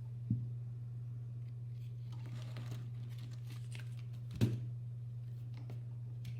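Keyboard parts being handled: two sharp knocks, one just after the start and one about four and a half seconds in, with light rustling and small clicks between, over a steady low hum.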